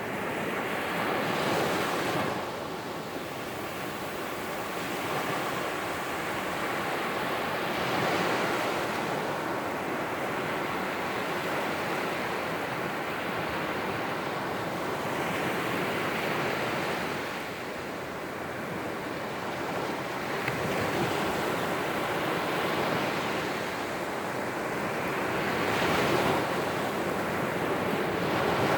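Surf breaking and washing up a sandy beach in the rain: a continuous wash of noise that swells as each wave breaks, every several seconds.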